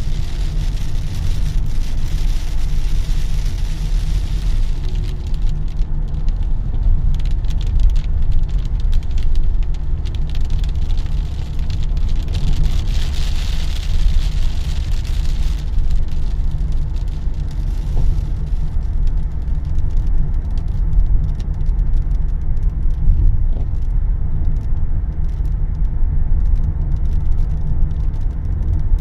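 A car driving in heavy rain: a steady low road rumble, with rain hissing on the car and drops ticking against it. The rain hiss fades after a few seconds, swells again around the middle, then falls away, leaving the rumble and scattered drop ticks.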